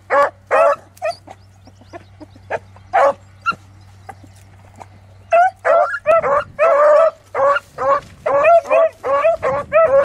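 Beagle hounds baying while running a rabbit's scent line. Short, pitched cries come scattered at first, then follow fast one after another from about halfway through.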